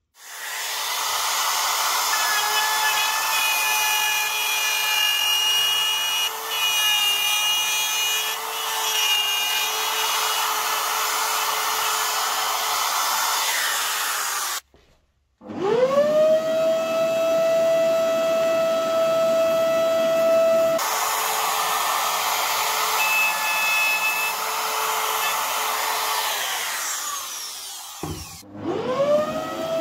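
Electric trim router cutting a recess into plywood: a loud, steady machine whine mixed with the rough sound of the bit chewing wood. Twice the sound cuts off and a small motor spins up to a steady high whine, once about halfway through and once near the end.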